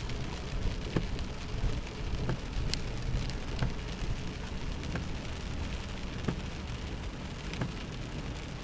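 Heavy rain striking a car, with scattered sharp drop hits over a steady low rumble as the car drives through floodwater.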